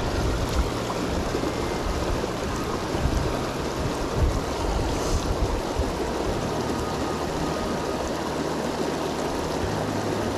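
Mountain stream running: a steady rush of flowing water, with a low rumble underneath.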